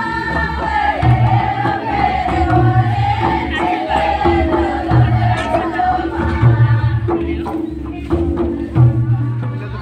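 Group singing of a Karma folk dance song, many voices in unison over a steady, repeating drum rhythm.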